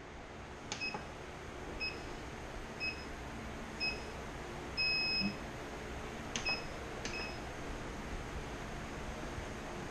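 Treadmill console beeping: a button click with a short beep, then short beeps about a second apart, four in all, and a longer beep about five seconds in, the typical start countdown. Two more button clicks with short beeps follow a little later, over a faint low hum.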